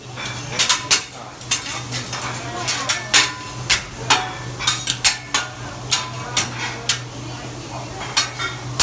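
Teppanyaki chef's metal spatula and utensils clacking against each other and tapping on the steel griddle in quick, irregular strikes, over a steady low hum.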